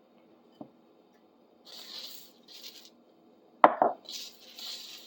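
Sandpaper rubbing in short strokes on the metal of a fireplace poker, with a sharp knock about three and a half seconds in.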